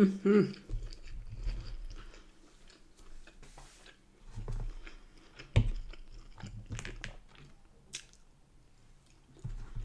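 Close-miked chewing of a mouthful of sesame bagel with scrambled egg, mushrooms and bacon, then a forkful of scrambled egg and mushroom, with a few sharp clicks in between, the loudest about five and a half seconds in.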